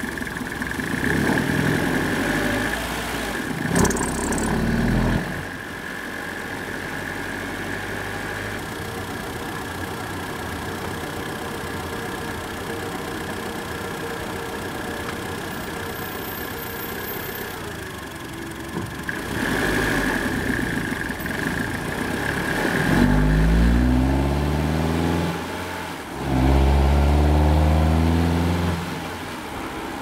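Fiat Grande Punto 1.4's four-cylinder petrol engine heard from inside the cabin. It runs low and steady while the car waits and rolls through junctions, then near the end revs rise under hard acceleration twice, with a short dip between for a gear change.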